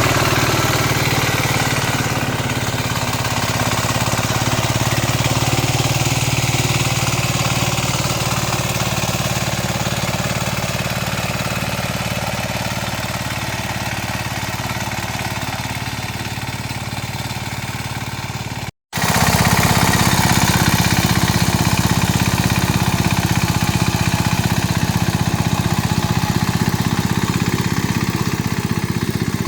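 Mini tractor engine running steadily, with a fast even chugging. The sound cuts out for an instant about two-thirds of the way through, then carries on a little louder.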